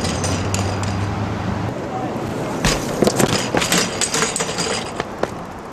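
A BMX bike and rider crashing onto pavement: a cluster of sharp knocks and clatters about three seconds in, after a stretch of steady noise.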